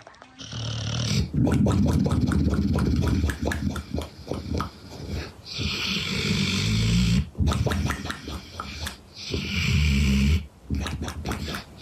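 A sleeping pet snoring: several long snores, each a low rattling rumble with a hissing breath noise over it.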